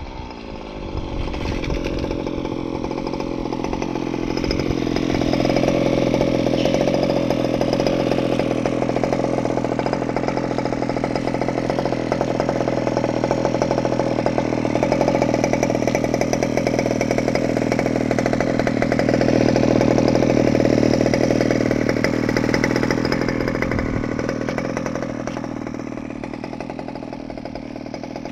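Zenoah G320 32cc two-stroke engine of a 1/5-scale KM Baja RC buggy idling steadily through a silenced side pipe. It grows louder a few seconds in and softer near the end.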